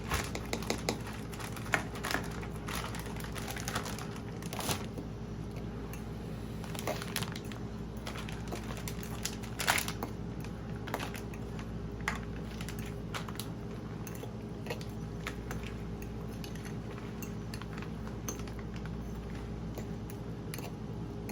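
A utensil clinking and scraping against a mixing bowl in scattered knocks as canned chicken, egg and shredded cheese are stirred together, over a steady low hum.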